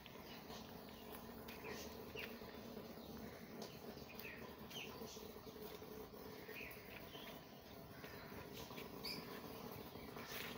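Faint, scattered short chirps from small birds, coming irregularly about once a second.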